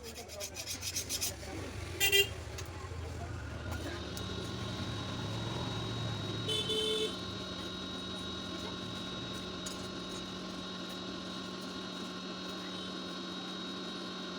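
Two short horn-like toots, about four seconds apart, with a steady machine hum of constant pitch setting in and running on beneath them.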